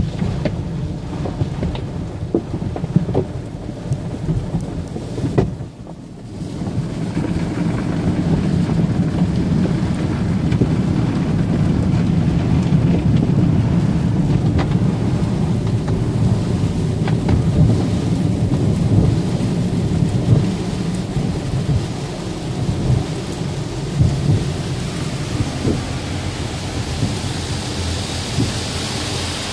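Automatic car wash running: water spraying and drumming on the car with a deep, steady rumble and scattered ticks of water. It drops off briefly about five seconds in, then comes back stronger.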